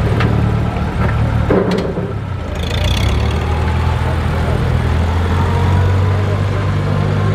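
Massey-Harris 30 tractor's four-cylinder engine running at low speed as the tractor drives slowly past, a steady low engine note that grows a little louder about three seconds in.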